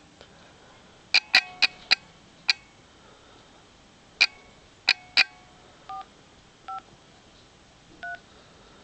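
iPhone 4S phone keypad playing touch-tone (DTMF) beeps as digits are tapped in to dial a number. A quick run of short, sharp beeps comes first, five and then three. Three slightly longer two-tone beeps follow, spaced about a second apart.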